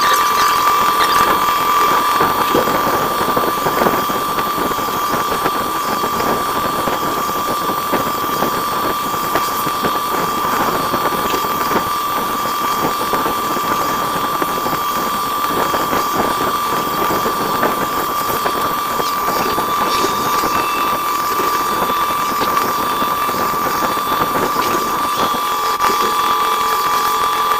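CNC machine cutting a workpiece: a steady high whine from the spindle and cutter over a dense crackling hiss from the cut.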